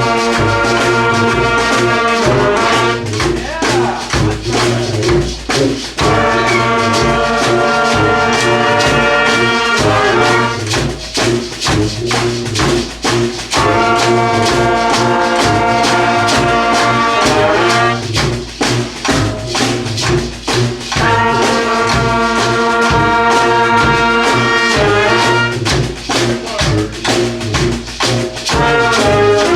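Student brass band with drums playing held brass chords about four seconds long, alternating with bars of drums and percussion alone. A "1, 2, 3, 4" count is spoken over the percussion about six seconds in.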